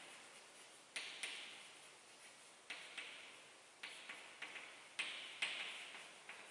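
Chalk writing on a blackboard: sharp irregular taps, about two a second, as the chalk strikes the board, several followed by a short scratchy hiss of the chalk dragging across it.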